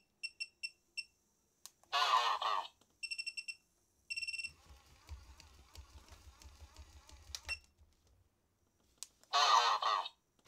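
Digital bench power supply beeping as its buttons are pressed to raise the voltage: single short beeps, then quick runs of beeps. Between them, the battery-style plush toys respond at low voltage: two short voice-like bursts from their sound chip and, for about three seconds in the middle, a low motor buzz with clicking from the moving mechanism.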